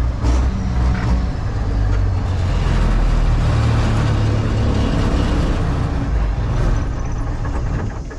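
Zimbru A1800 articulated tractor's engine running steadily with a deep rumble. The sound drops off right at the end.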